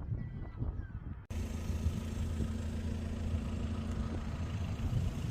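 Steady engine and road drone heard from inside a moving car, starting after an abrupt cut about a second in.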